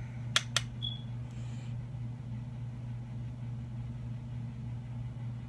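A steady low hum throughout, with two sharp clicks close together about half a second in and a brief high tone just after.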